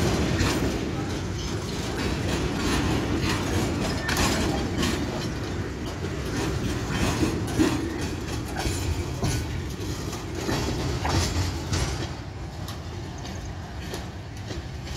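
Freight train of kerosene tank wagons rolling past close by: a low rumble with steel wheels clicking over the rail joints. The sound falls away about twelve seconds in as the end of the train, the brake van, passes and moves off.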